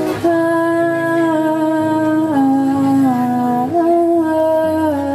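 Live band music: a wordless vocal melody held on long notes, stepping down in pitch and back up, over steady guitar and bass accompaniment.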